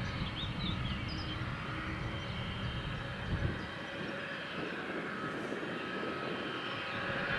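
Gulfstream G600 business jet taxiing, its two rear-mounted Pratt & Whitney PW815GA turbofans running at low taxi power with a steady whine over a low rumble.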